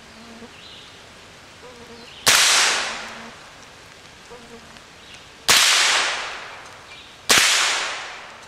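AR-15 firing .22 LR through a CMMG bolt conversion kit: four single shots a few seconds apart, the last at the very end, each a sharp crack trailing off over about a second.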